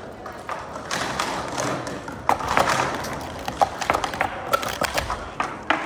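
Plastic sport-stacking cups clacking in a rapid flurry of sharp clicks as they are stacked up and brought down at speed, thickest from about two seconds in.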